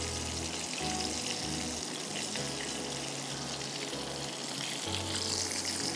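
Steady hiss of hot oil sizzling in a frying pan.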